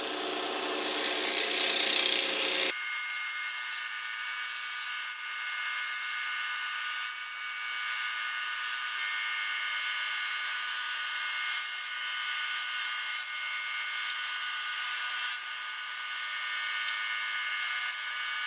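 Wood lathe running with a steady high whine while a skew chisel trims the spinning sanding-disc holder: a rough cutting noise for the first few seconds, then several short, light hissing cuts.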